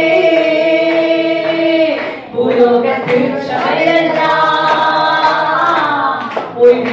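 Women singing a Tamil Christian worship song into handheld microphones. Long held notes give way to a short break about two seconds in, then the singing resumes.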